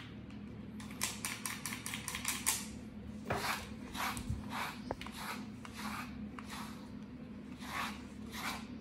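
Slicker brush dragged through a shedding German Shepherd's thick coat, raking out loose undercoat: a quick run of short strokes, about five a second, then from about three seconds in slower, longer strokes about twice a second.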